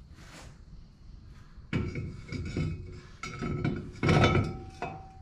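Metal clanks and knocks with a short ringing after them as a wheel rim is set onto a side-by-side's hub studs for a test fit; several knocks begin a little under two seconds in, the loudest about four seconds in.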